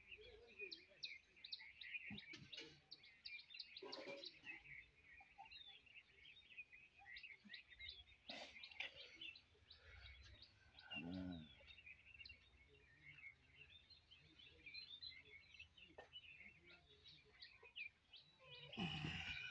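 Faint chirping of small birds in the background, many short quick calls, with a few soft clicks.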